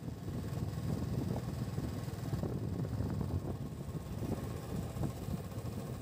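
Motorcycle running steadily at road speed, its low engine drone mixed with wind buffeting the microphone.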